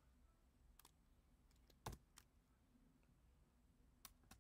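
Near silence broken by a handful of faint, separate computer keyboard keystrokes as a number is typed, the loudest a little under two seconds in.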